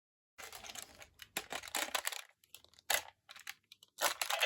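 Plastic Siren Striker toy being handled: a run of small clicks, taps and brief scrapes of plastic. About four seconds in, a louder, denser sound starts.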